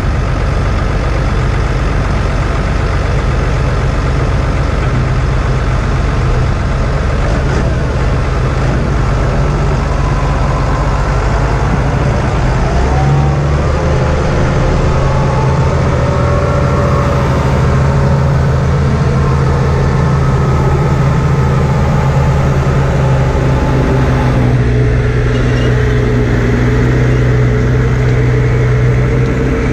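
Tractor engine running steadily, its note shifting about 13 seconds in and again near 25 seconds in, with fainter whining tones from machinery over it.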